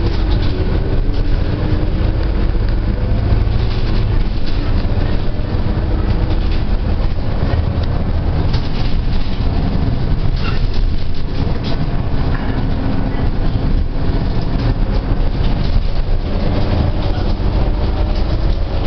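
Cabin noise of a moving bus: a steady low engine and road rumble with rattles and a faint whine that slowly shifts in pitch.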